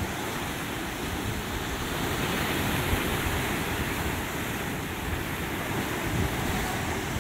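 Sea surf surging and breaking against basalt column cliffs: a steady, continuous rush of churning white water.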